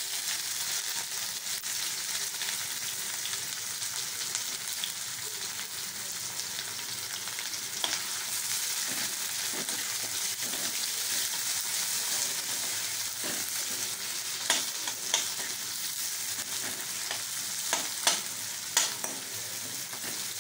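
Sliced onions sizzling in hot oil in a metal kadhai, with a steady hiss, as they are stirred with a metal spoon. The spoon scrapes and clinks against the pan a few times, once about eight seconds in and several times in a cluster in the last third.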